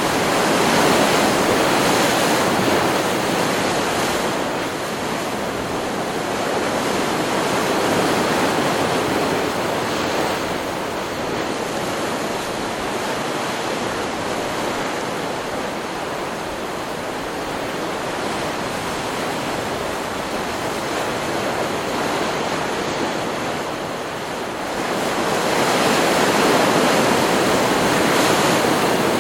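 Stock recording of ocean surf: waves breaking and washing up the shore in a continuous rush. It swells louder in the first few seconds, again about eight seconds in, and near the end.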